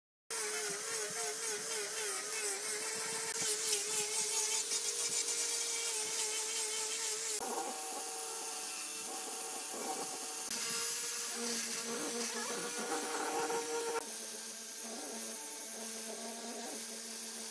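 Angle grinder fitted with sanding attachments, first a disc and then a drum, running as it sands and shapes a wooden table leg; the motor's whine wavers as the pad is pressed into the wood. The sound starts suddenly just after the beginning and changes abruptly several times.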